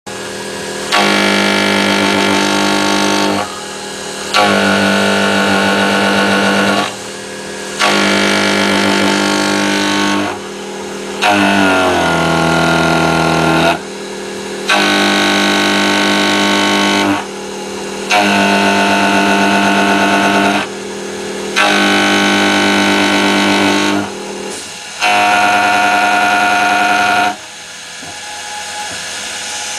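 Homemade CNC milling machine hard-milling hardened steel in repeated passes: a loud whining, pitched machine sound in about eight stretches of two to three seconds, each followed by a short quieter lull. Partway through, the pitch slides as the machine changes speed.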